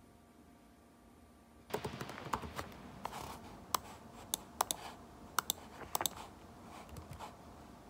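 Typing on a laptop keyboard: irregular key clicks, some sharper than others, starting about two seconds in. Before that, only quiet room tone with a faint hum.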